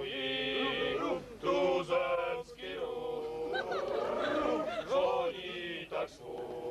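A group of singers singing a Czech song together in chorus, their voices rising and falling, with a few short breaks between phrases.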